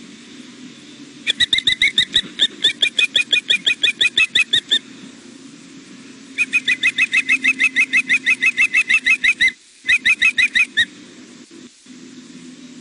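Osprey giving long runs of rapid, high, piercing chirps, about eight a second: a fledgling's food-begging call. Two long runs are followed by a short burst near the end, over a steady low hum.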